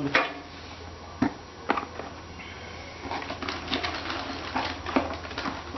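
Scattered light clicks and rustling as new tractor parts and their packaging are handled and rummaged through in a box, busiest in the second half, over a steady low hum.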